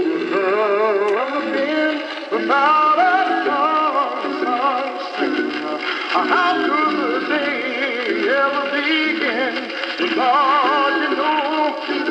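Vintage Audiotronics 320T Classroom Tutorette record player playing a vinyl single through its built-in speaker: a song with a singer's wavering, vibrato-laden voice over accompaniment. The sound is thin, with almost no bass.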